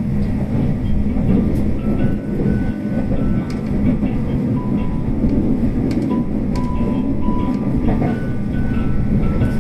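JNR 381 series electric train running, heard from inside the car: a steady rumble with scattered rail clicks, and a few faint thin high tones that come and go midway.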